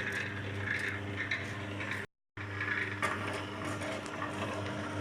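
Electric cable-stripping machine running: its motor and reduction gearbox hum steadily while the rollers draw a cable through, with faint ticks and scrapes. The sound cuts out completely for a moment about two seconds in.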